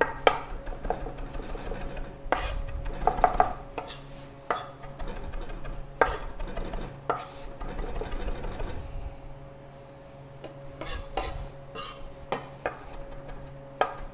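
Chef's knife chopping fresh herb leaves finely on a wooden cutting board: irregular knocks of the blade striking the board, thinning out briefly about nine to ten seconds in before picking up again.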